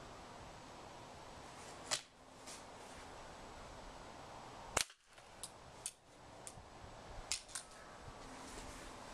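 Break-barrel pellet gun shooting at an old laptop: a sharp crack about two seconds in, another about five seconds in, then a quick run of lighter clicks and snaps.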